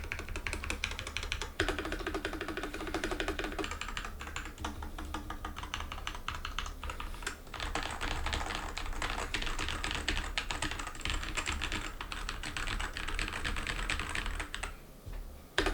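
Royal Kludge RK84 75% mechanical keyboard with Glorious Panda tactile switches being typed on in continuous runs of keystrokes. The typing thins out near the end.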